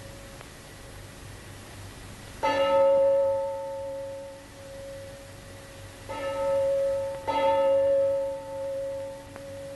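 A deep bell struck three times: once about two and a half seconds in, then twice more a little over a second apart. Each stroke rings on and slowly fades.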